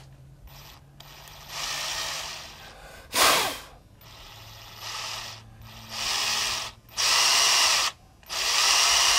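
Cordless drill run in short trigger bursts, about six in all, spinning the wire core of a large fly to twist the fibres tight. Each burst is a whir that starts and stops abruptly, the longer ones lasting about a second. About three seconds in there is one brief, louder rush, the loudest moment.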